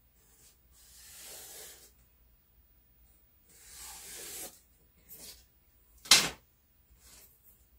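A felt-tip marker rubbing along a plywood floor in scratchy strokes of about a second each, drawing faux board lines. About six seconds in comes one sharp tap, the loudest sound, as of a straightedge or marker knocking on the floor.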